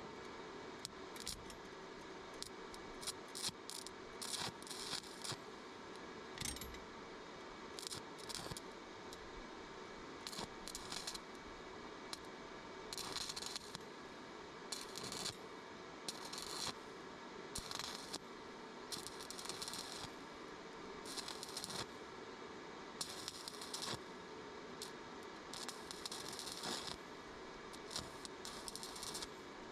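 Irregular short bursts of metallic scraping and rattling, some lasting under a second, with sharp clicks in between, over a faint steady hum.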